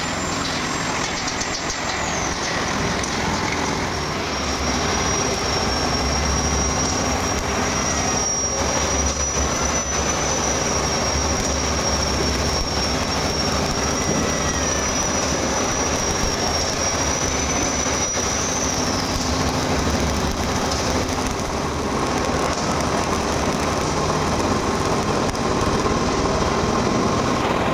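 Stick (shielded metal arc) welding on steel plate: the electrode's arc crackling and hissing steadily.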